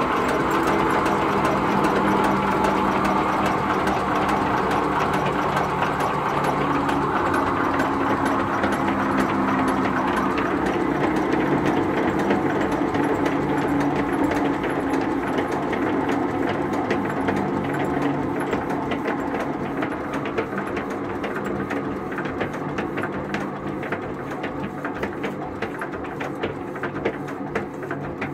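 Witte Engine Works 10 HP stationary engine running with a steady rhythmic clatter. Over roughly the last ten seconds it grows fainter and its beat slows as the engine coasts down after being shut off.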